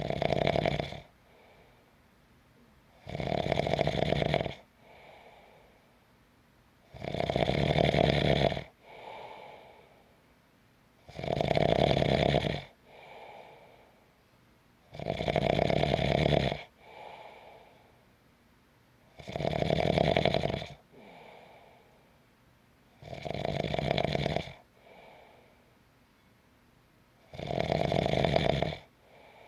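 A person snoring steadily: eight loud snores, one about every four seconds, each followed about a second later by a fainter, shorter breath sound.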